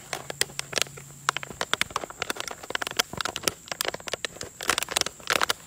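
Plastic water bottle crackling and crunching as Cane Corso puppies chew and tug at it: a rapid, irregular run of sharp crackles.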